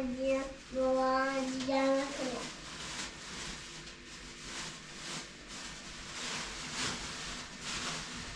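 A young child's voice holding three sung notes at one steady pitch over the first two seconds, the last one sliding down at its end. Then faint scuffing and rustling noise.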